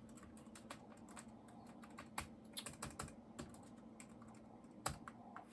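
Faint typing on a computer keyboard: scattered key clicks, with a cluster of firmer keystrokes in the middle and one louder stroke near the end.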